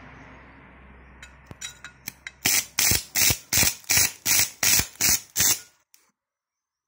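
Stick-welding arc from a homemade AC pulse welding machine: a few scattered crackles as the rod is struck, then the arc crackles loudly in even pulses about three times a second before it stops.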